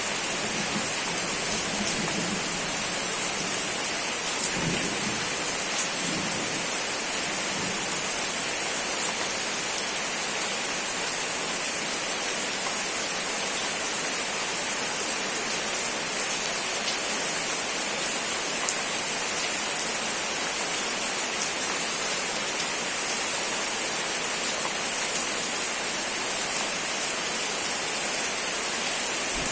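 Steady rain falling, a dense even hiss, with a faint low rumble in the first few seconds.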